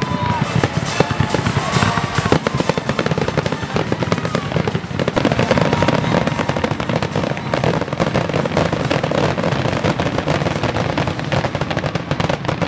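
Aerial fireworks in a dense barrage: a continuous rapid crackling of many small reports, mixed with bangs.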